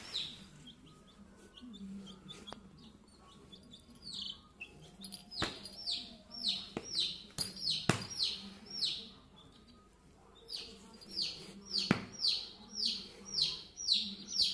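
Baby chick peeping: short, high cheeps that fall in pitch, scattered at first, then coming steadily about two or three a second near the end. A few sharp clicks are heard among them.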